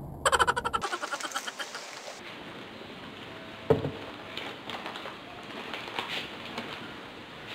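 A person's short, rapidly pulsing throaty vocal sound near the start, followed by faint scattered mouth and snack noises, with one sharp click a little under four seconds in.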